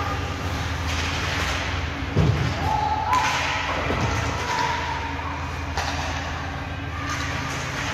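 Ice hockey play in an arena: a heavy thud about two seconds in and sharp knocks about a second later and near six seconds, like puck and bodies against the boards, over a steady low arena hum with faint distant shouts.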